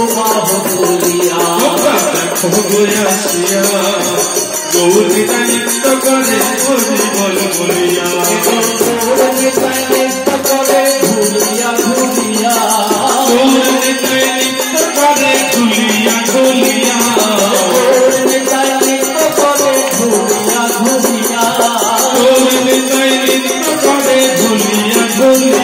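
Kirtan: male voices singing a devotional melody through microphones over steady jingling, rattling hand percussion.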